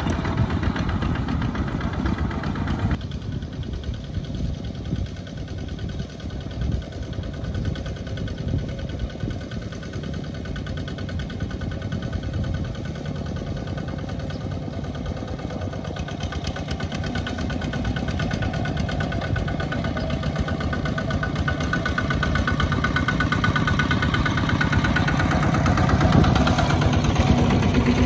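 Single-cylinder diesel engines of Kubota two-wheel walking tractors running steadily with a fast, even chugging while pulling trailers loaded with rice sacks. The sound changes abruptly about three seconds in and grows louder toward the end.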